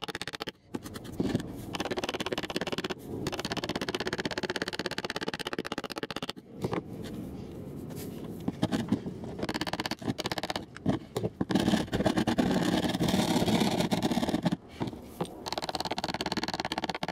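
Flat metal scraper dragged over glued-down ballast and cork on a model railway baseboard, scraping and crunching the grit loose in irregular strokes with short pauses.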